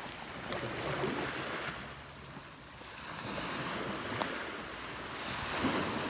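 Small surf washing onto the beach, swelling up twice.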